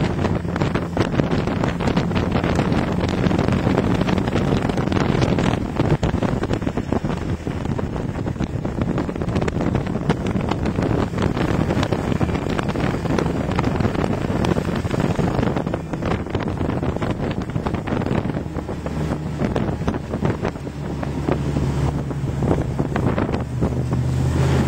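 Snowmobile engine running steadily while under way, with wind buffeting the microphone. In the last few seconds the engine note turns steadier and clearer.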